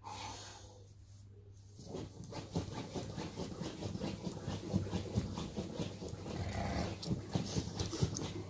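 A Rottweiler–Presa Canario cross's claws scratching and pawing at a fabric-covered cushion dog bed: rapid, uneven scuffing strokes that start about two seconds in.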